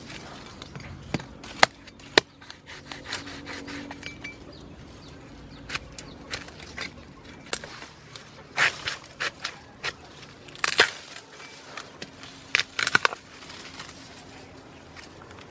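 A steel cleaver chopping and cutting into a bamboo shoot and its tough, papery husk: irregular sharp knocks and cracks, a few at a time.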